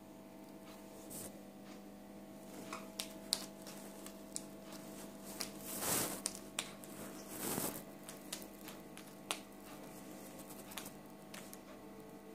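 A cat's paws and claws batting and scratching at a wooden wall: scattered light taps and clicks, with two brief scratching swishes about halfway through, over a faint steady hum.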